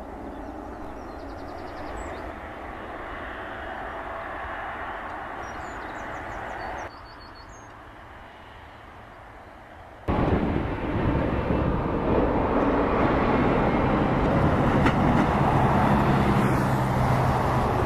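Boeing 777 jet airliner's turbofan engines running as it lines up and starts its takeoff run. The sound dips at about seven seconds, then about ten seconds in becomes abruptly much louder: a steady, heavy roar with a low hum, as the engines run at takeoff thrust.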